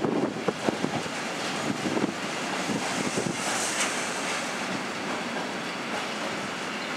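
Loaded container freight wagons rolling past. The wheels clack over rail joints with sharp knocks in the first few seconds, then settle into a steady rumble and hiss as the rear of the train goes by.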